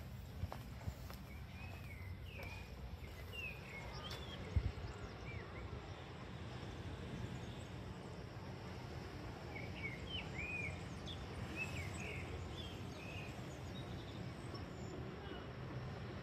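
Outdoor ambience: a steady low background rumble with bursts of short chirping bird calls, a few seconds in and again around ten seconds, and a single sharp knock about four and a half seconds in.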